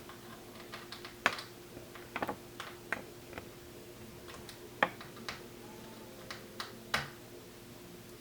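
Irregular light clicks and taps from a small screwdriver taking out the screws that hold a laptop screen in its plastic case, and from the parts being handled. A faint steady hum runs underneath.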